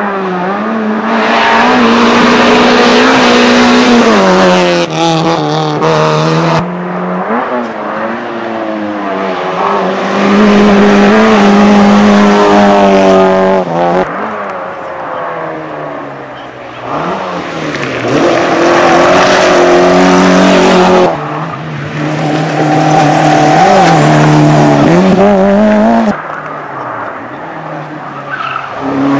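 Rally cars driven hard one after another through a tight bend: engines revving high, falling away on the brakes and climbing again on the throttle, with tyres squealing. Each pass starts and stops abruptly, several times over.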